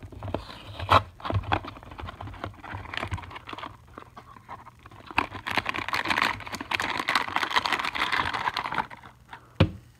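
A small cardboard blind box being opened by hand: tape peeled and the flap pulled open with scattered clicks and scrapes, then about four seconds of dense crinkling as the wrapper inside is handled and pulled open.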